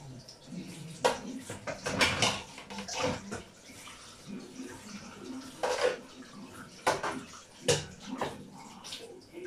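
Raw chicken pieces being put into a cooking pot: a string of short wet splats and knocks at irregular intervals.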